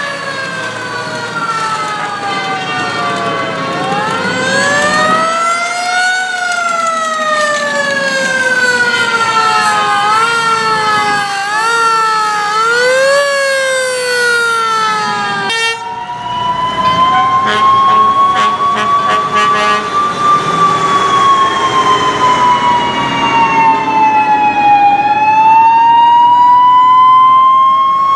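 Several fire truck sirens wailing over one another, their pitches rising and falling at different rates, with quick up-and-down whoops a little before the middle. About halfway through the mix changes suddenly to one loud siren slowly rising and falling.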